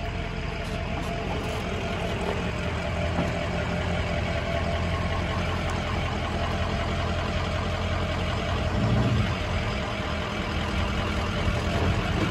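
A tow truck's engine idling steadily, with a brief swell about nine seconds in.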